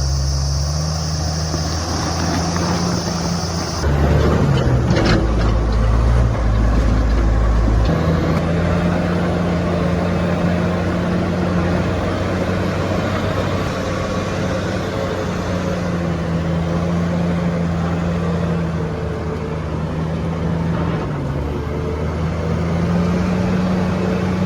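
Bulldozer's diesel engine running under load, its engine note shifting in pitch a few times as it works.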